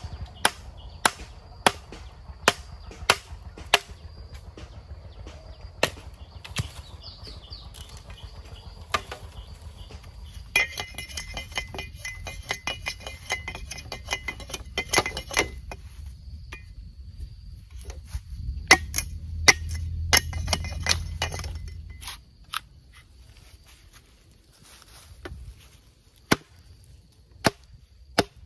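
Bamboo being chopped with a blade: sharp strikes, about two a second at first, then more irregular.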